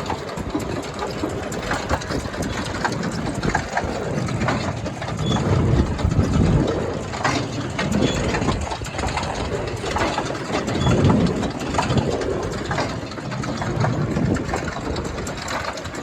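New Holland Big Baler 340 large square baler running off a tractor's PTO: a steady mechanical clatter with low thumps recurring about once a second, over a tractor engine.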